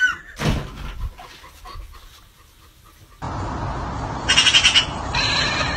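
Domestic cat chattering: two quick bursts of rapid, rattling magpie-like calls over a steady background hiss.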